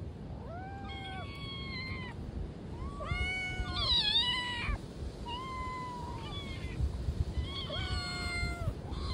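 Domestic cats meowing up at a person for food: four drawn-out meows a second or so apart, the second the loudest and wavering in pitch, with another starting at the very end.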